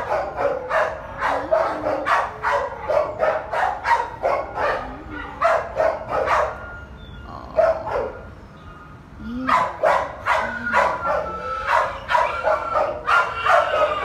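Dogs in shelter kennels barking in quick succession, about three barks a second, with a short lull around eight seconds in before the barking picks up again.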